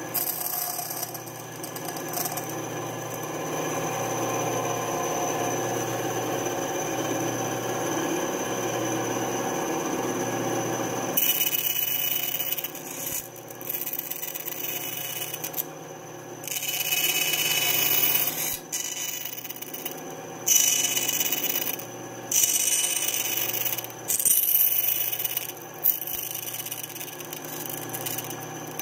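Benchtop band saw running with its blade cutting thin lite plywood. For about the first eleven seconds the cut is steady. After that it becomes a brighter hiss that stops and starts every second or two as the workpiece is pushed into the blade.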